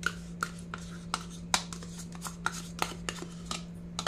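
Metal spoon scooping curd out of a plastic cup into a steel bowl: a run of light clicks and taps, about three a second, over a steady low hum.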